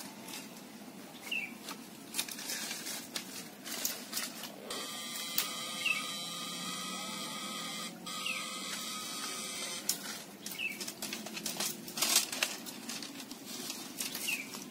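Dry twigs and brush crackling and rustling as someone pushes through creekside undergrowth. A steady electrical whine comes in about five seconds in and cuts off about five seconds later. A few short high bird chirps are heard.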